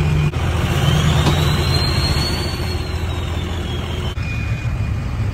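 Lifted pickup truck's engine running at low speed as the truck creeps up a ramp onto a flatbed trailer, with a faint high whine that rises and falls midway. The sound changes abruptly about four seconds in.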